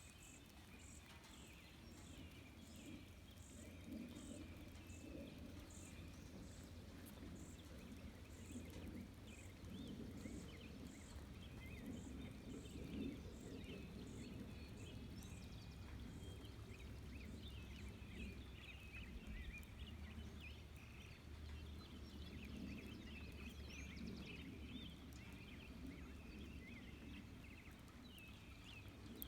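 Faint natural outdoor ambience: small birds twittering and an insect chirping about twice a second, the chirping stopping about halfway through, over a low rumble.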